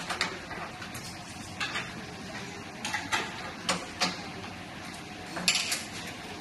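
Irregular metallic clinks and knocks from a spanner on a collet holder's clamping nut as the CNC collet holder is tightened and handled on a metal test stand, about eight sharp clicks spread through.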